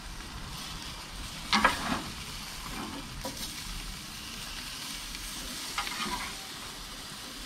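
Chicken kabobs and vegetables sizzling on a hot grill, with a steady hiss. Two short clatters of the tongs come through, the louder about a second and a half in and another around six seconds.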